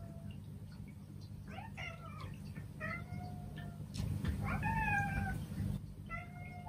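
Several house cats meowing again and again, about five or six short meows with the longest and loudest a little past the middle. The cats are meowing to be fed before their breakfast.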